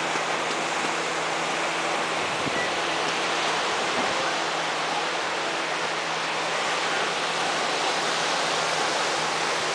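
Surf breaking and washing on a sandy beach: a steady, even rushing noise, with a faint low hum beneath it for about the first six seconds.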